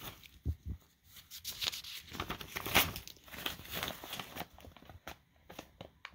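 Paper rustling and crinkling as notepad pages are flipped over by hand, with a few short sharp ticks near the end.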